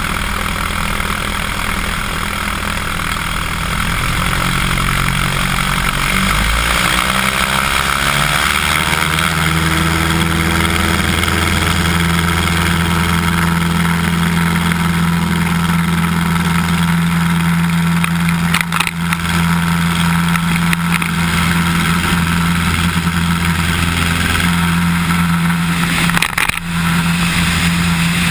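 Cessna 150's four-cylinder Continental O-200 engine and propeller: the engine rises to full power over a few seconds, then runs at a steady high drone through the takeoff roll, with airflow noise on the wing-mounted microphone.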